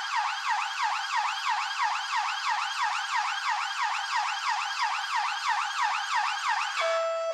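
Police siren in a fast yelp, sweeping up and down in pitch about four times a second. It cuts off near the end and gives way to a different, steady stepped tone.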